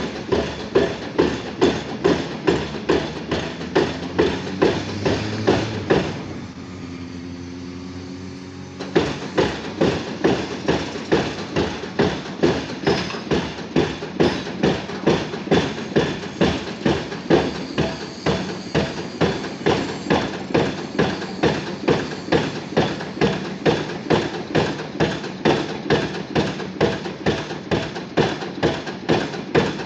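Junttan PMX22 pile driving rig's hydraulic hammer striking a pile in a steady rhythm, about one and a half blows a second. The blows stop for about three seconds near the start, leaving the rig's engine drone with a short rising whine, then resume.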